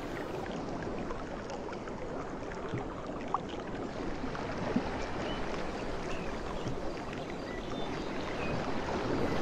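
Steady rushing outdoor ambience of wind and water, with a few short high chirps scattered through and a couple of faint ticks near the middle.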